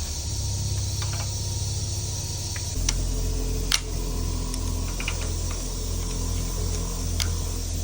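Steady low hum with a few short, sharp metallic clicks and clinks scattered through it, as tools and engine parts are handled.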